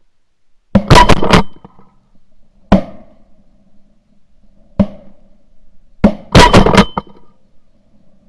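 Mallard-style duck call blown hard and close: a quick run of quacks about a second in, two single loud quacks, then another fast run of quacks near the end, calling incoming ducks.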